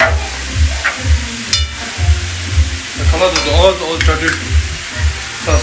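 Chopped cabbage sizzling and frying in a hot pan as it is stirred, over background music with a steady bass beat.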